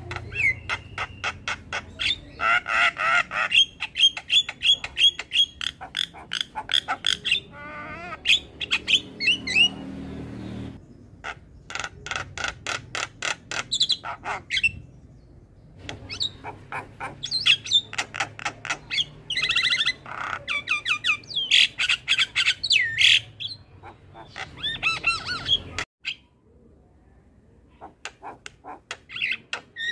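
Javan myna (jalak kebo) singing in long runs of rapid, harsh chattering notes and squawks, broken by brief pauses, with a longer quiet spell near the end before the calling starts again.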